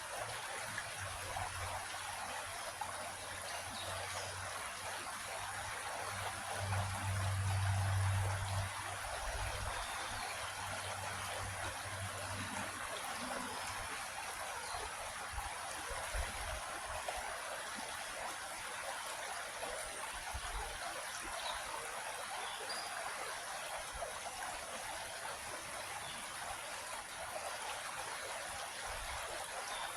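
Creek water flowing and trickling steadily over rocks. A low rumble sits under it for the first dozen seconds, loudest about seven to eight seconds in.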